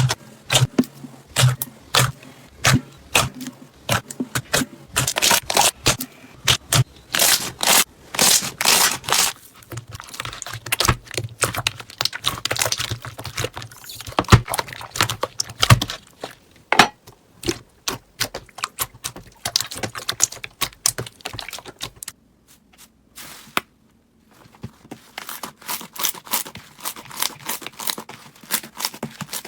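Hands squeezing, poking and stretching slime, giving rapid irregular clicks, pops and crackles. The sound stops for about two seconds a little past two-thirds of the way through, then comes back softer.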